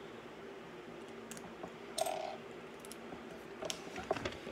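Hard plastic LEGO pieces clicking and clinking as they are handled and fitted together: a few scattered light clicks over a quiet background.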